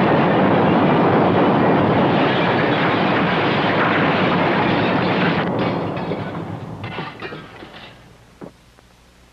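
Earthquake sound effect: a loud, continuous rumble of collapsing buildings and falling debris. It thins to a few crackles about six seconds in and dies away by about eight seconds.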